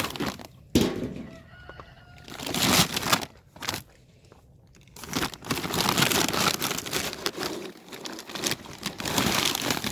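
Dry horse feed being scooped: a scoop rustling and crunching through grain or pellets, in a few short bursts and then a longer stretch of steady rustling from about halfway.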